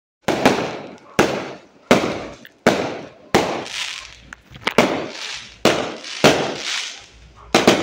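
Fireworks going off in a rapid series: about ten sharp bangs, roughly one every 0.7 seconds, each trailing off in echo, with a double bang near the end.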